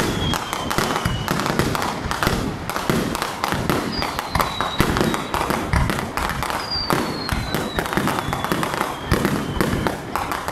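Fireworks display: a dense, continuous stream of bangs and crackling from aerial shells bursting. A high whistle slides downward twice, about four and seven seconds in.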